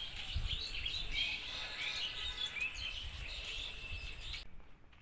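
Many small birds chirping and calling together in quick short notes, with a low rumble of wind on the microphone. The chirping cuts off suddenly about four and a half seconds in.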